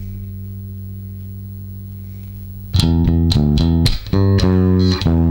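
Ernie Ball Music Man StingRay 4 bass played through a Mark Bass Little Mark Tube 800 head with the preamp set fully to tube. A held low note rings and slowly fades, then about three seconds in a loud run of quick plucked notes starts.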